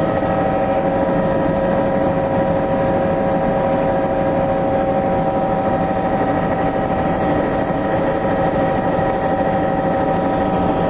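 Helicopter in flight heard from inside the cabin: steady engine and rotor noise with a constant high whine that does not change.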